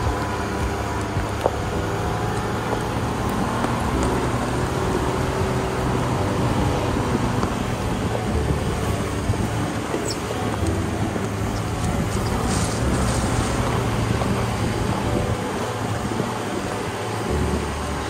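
A vehicle's engine running steadily while driving, with background music mixed in.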